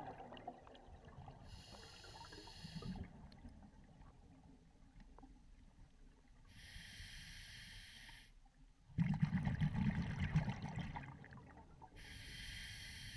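Scuba regulator breathing heard underwater. There are three hissing inhalations of about a second and a half each, and a loud bubbling exhalation about nine seconds in.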